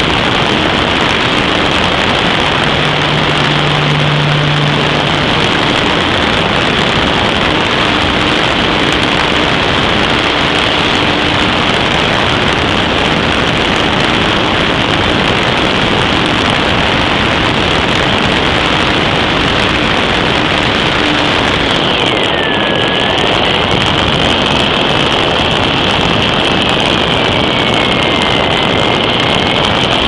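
Loud, steady rush of air with a small motor's high whine, heard from a camera carried aloft. About two-thirds of the way through, a second whine joins: it dips in pitch, then rises and wavers.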